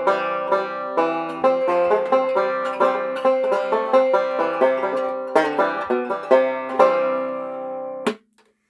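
Baritone banjo, converted from a standard banjo, being picked: a steady run of plucked notes over a ringing drone string. Near the end the strings are damped and the sound cuts off suddenly.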